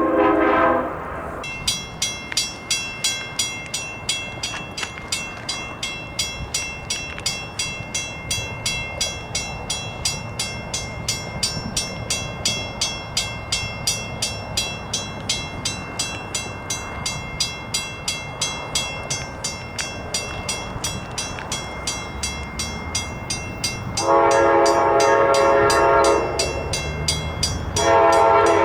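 Diesel passenger locomotive's multi-tone horn blast ending about a second in, then a grade-crossing bell dinging steadily over low wind rumble. The horn sounds again with a long blast and another starting near the end, as the train approaches the crossing.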